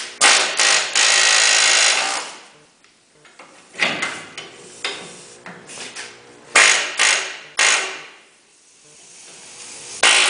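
Pneumatic air hammer with a chisel bit hammering on the steel inner sleeve of a leaf-spring shackle hanger bushing, peeling up the sleeve's edge to work it loose. It runs loud in bursts: one of nearly two seconds at the start, then shorter ones with pauses between.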